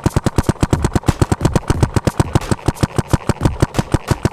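Paintball marker firing in rapid fire, a fast steady stream of sharp pops at about ten shots a second.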